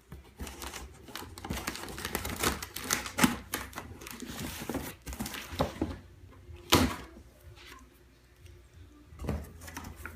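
Hands opening a large cardboard shipping box: a dense run of quick clicks, scrapes and rustles of cardboard and packing, with sharp knocks about three and seven seconds in.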